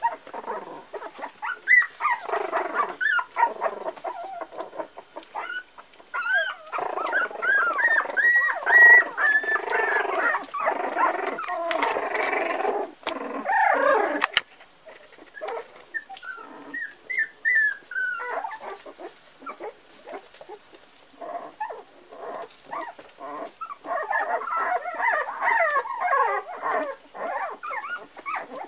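A litter of four-week-old Parson Russell Terrier puppies yipping and whining in squeaky, overlapping bursts while play-fighting. The calls come thick and fast for the first dozen seconds, thin out for a while, then pick up again near the end.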